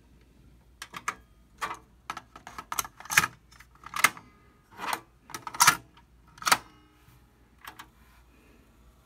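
Sharp plastic clicks and clacks of a Kenwood KX-77CW double cassette deck being worked by hand: the eject, cassette door and transport keys snapping as a tape is loaded. About a dozen clacks come unevenly over some seven seconds.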